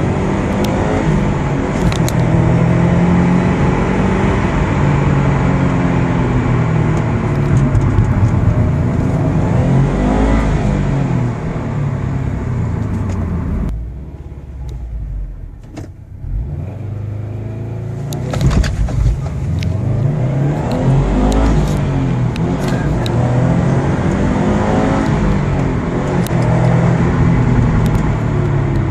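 Subaru STI's turbocharged flat-four engine accelerating hard through the gears. Its pitch climbs and drops back at each shift. About halfway through it goes off the throttle and quietens for a few seconds, then pulls up through the gears again.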